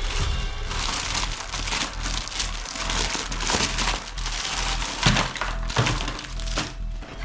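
Plastic packaging crinkling and rustling in irregular handling noise as toy guns are unwrapped, over background music.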